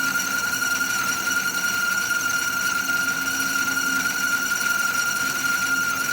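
BCA mini jig borer cutting metal dry: the cutter gives an awful steady high-pitched screech over the hum of the machine's motor, from cutting without any cutting fluid.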